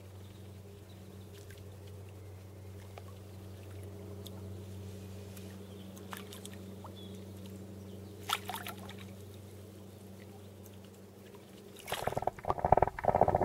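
A faint steady low hum with a few light clicks, then about twelve seconds in loud, irregular splashing as a hooked rainbow trout thrashes at the surface close to the camera.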